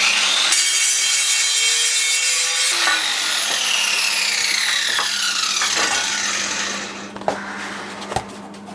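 Angle grinder switched on and run at full speed for about three seconds, then switched off, its whine falling in pitch as the disc spins down over about four seconds. It is running again after its sticking carbon brush was freed so that the brush contacts the motor.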